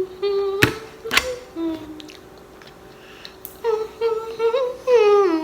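A woman humming a tune in held, gently sliding notes: one short phrase, a pause, then a longer phrase near the end. Two sharp clicks cut in during the first phrase.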